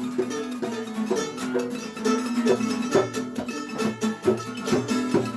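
Live punk band's instrumental break: a plucked-string solo played over the band's steady rhythm, with no singing.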